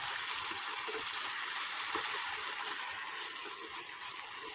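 Chicken and capsicum sizzling in a kadai as a steady hiss, with a few faint scrapes of a wooden spatula stirring the dry-fried mixture.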